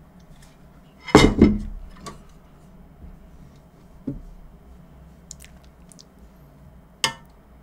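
Cutlery and dishes clinking and knocking at the table: a loud double clatter about a second in, a softer knock around four seconds, and a sharp clink near the end.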